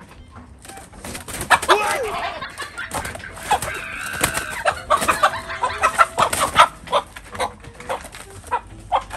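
Gamecocks squawking and clucking in alarm as a hand grabs at them inside a wire dome cage, with scuffling and sharp clatters from the birds against the wire. The commotion starts about a second in and comes in several loud flurries.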